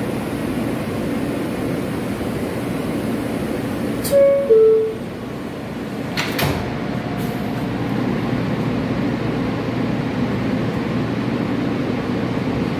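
New York City subway car standing at a station with its ventilation running steadily. About four seconds in, the two-note falling door chime sounds, and about two seconds later the sliding doors shut with a knock. The train then starts to pull away.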